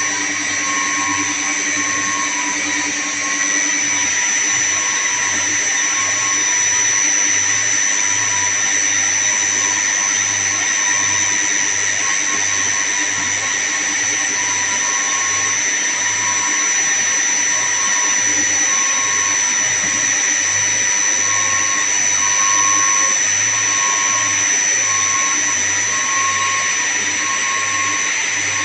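Steady running noise of chiller plant-room machinery: a constant high whine over a broad mechanical rush, with a low hum that pulses several times a second.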